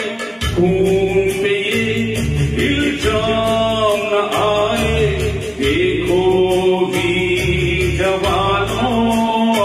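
Music: a Hindi patriotic song with a male voice singing over a backing band, the drums and bass coming in about half a second in with a steady beat.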